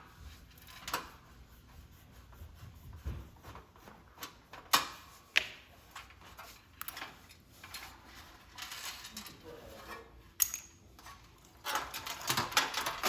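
Sheet-metal parts of a space heater being handled: scattered single clinks and taps of metal, then a quick run of rattling clicks near the end.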